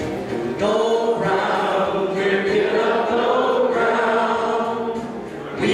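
Congregation singing a hymn together in long, held notes, with a brief pause for breath near the end.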